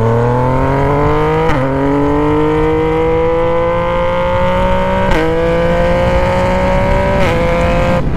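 Yamaha Tracer 900's three-cylinder engine, exhaust run with only the pipe and no silencer, under hard acceleration. Its pitch climbs steadily in each gear and drops sharply at three quick upshifts: about a second and a half in, about five seconds in and about seven seconds in.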